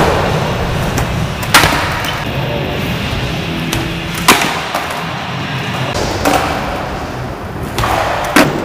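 Skateboard wheels rolling with several sharp clacks of the board being popped and landing on 360 flip attempts. The loudest clacks come about a second and a half in and about four seconds in, with another near the end.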